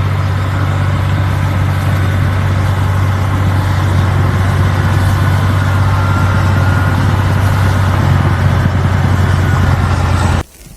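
A motor vehicle's engine running steadily with a deep, even hum, under a constant rushing noise. It cuts off suddenly near the end.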